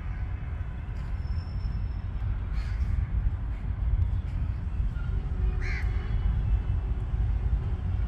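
Low, uneven rumble of wind buffeting the phone's microphone, with a bird calling briefly twice, a few seconds apart.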